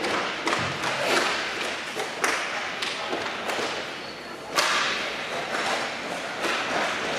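Inline hockey play on a plastic rink floor: repeated sharp clacks of sticks hitting the puck and the floor, over a steady rolling rumble of skate wheels, echoing in a large hall. The loudest single crack comes about four and a half seconds in.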